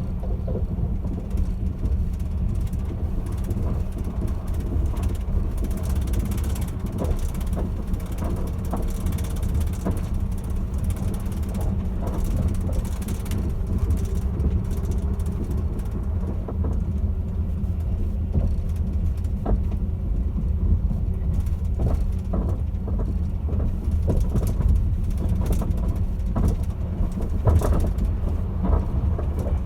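Caledonian Sleeper train: a steady low rumble with scattered short knocks and rattles.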